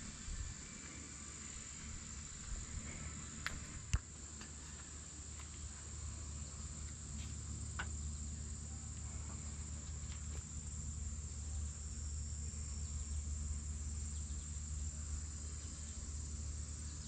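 Steady high-pitched chorus of insects, crickets or katydids, over a faint low hum. A few light clicks and one sharp knock about four seconds in.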